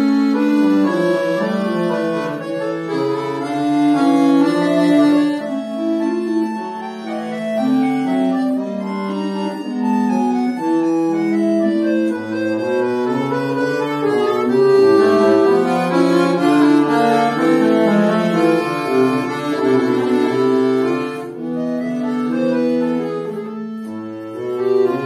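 Chromatic button accordion played solo: several interweaving melodic lines of sustained reed notes, with a lower bass line entering about halfway through.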